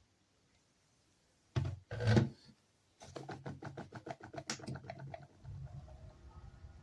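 Two dull thumps of something being handled, then a quick run of clicks, about nine a second for two seconds, then a low steady rumble.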